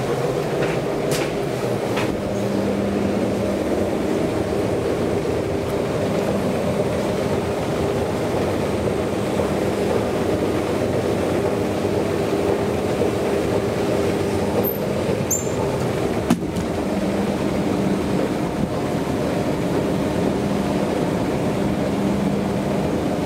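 Traction elevator car running through its shaft: a steady rumble with a low hum and a few light clicks and knocks.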